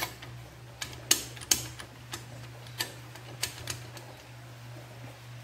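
Steel gearbox parts of a motorcycle engine clicking and tapping against each other and the aluminium crankcase as a pin is fitted by hand. About eight sharp, irregular clicks come in the first four seconds, then only faint handling noise, over a steady low hum.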